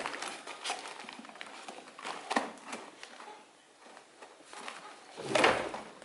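Paper vacuum dust bag rustling and crinkling as it is handled, with light knocks and clicks between. A louder, longer crinkle comes near the end.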